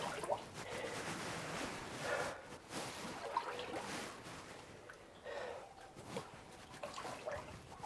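Boots wading through knee-deep water in a flooded mine tunnel, with irregular sloshing and splashing at each step.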